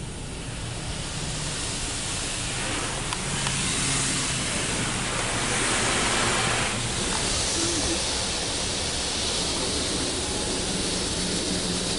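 Water spray from a Belanger Kondor KL2 car wash hitting the car's body and windows, heard from inside the cabin: a steady hiss that grows louder over the first few seconds, then holds.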